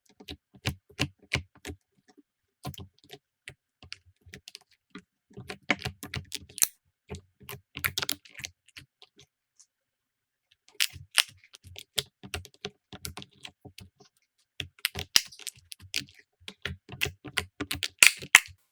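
Slime being handled, giving quick runs of sticky clicks and crackles, in several bursts broken by short pauses.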